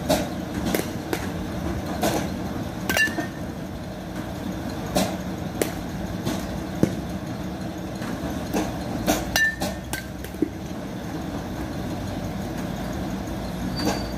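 Batting-cage sounds: more than a dozen sharp knocks and cracks at irregular intervals, a few with a short metallic ping, as a bat meets pitched baseballs and balls strike the cage, over a steady background hum.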